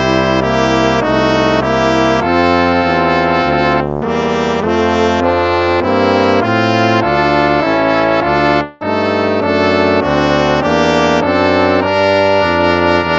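Instrumental hymn music: held chords in a brass-like sound that move on every second or so, with a brief break about two-thirds of the way through.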